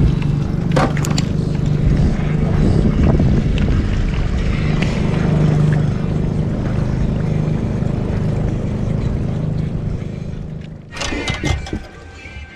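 Small outboard motor on a pontoon boat running steadily at trolling speed, a low even hum with wind rumble on the microphone. It cuts off about eleven seconds in, with a brief clatter before music begins.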